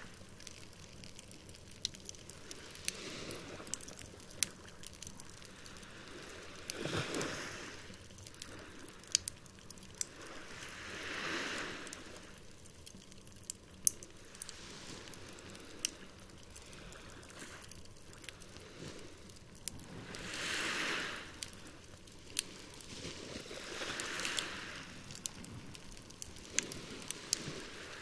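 Campfire crackling with scattered sharp pops, over small waves washing onto the shore with a soft swell about every four seconds.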